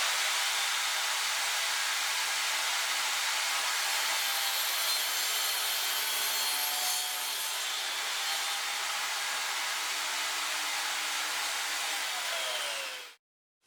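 Table saw running and cutting a 60-degree miter through a round wooden rod, a steady whine and cutting noise that eases slightly about halfway through. Near the end the pitch falls, and then the sound cuts off.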